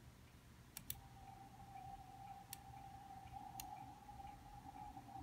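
Computer mouse clicking: a quick double click about a second in, then two single clicks, over near silence. A faint steady tone starts with the double click.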